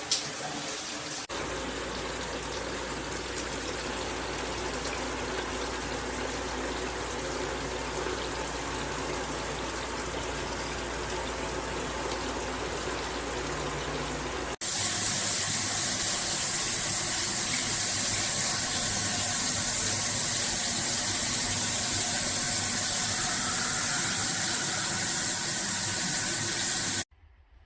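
Water spraying steadily from a shower head, the sound stepping up about halfway to a louder, hissier spray, then cutting off abruptly just before the end.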